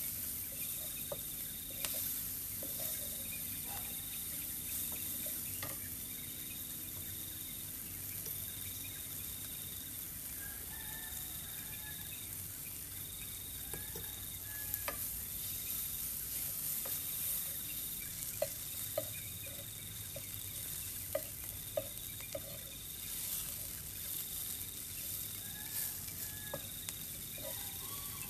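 Sliced chillies, garlic and lime leaves sizzling in oil in a nonstick frying pan, a steady hiss, with a wooden spatula stirring and now and then clicking against the pan. An insect calls in regular pulses, about one every second and a half.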